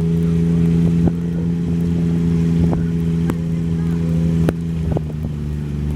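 Festival ride train's engine running at a steady drone, with a few sharp clunks and knocks from the ride during it.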